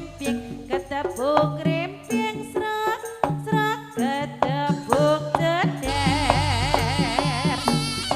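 Live Javanese jaranan music: a steady beat of hand-drum strokes under a sliding, ornamented melody line, with a deep bass coming in about six seconds in.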